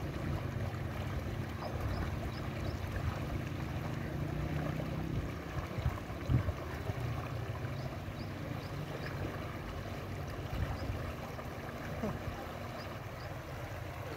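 Steady rush of a shallow, fast-flowing muddy stream running around wading legs, with a brief thump about six seconds in.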